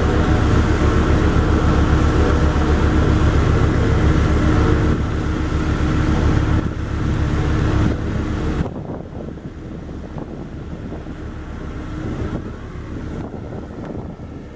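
Diesel road roller running with a loud, fast low pulsing and a steady hum. About two-thirds of the way in, it drops abruptly to a quieter, duller rumble.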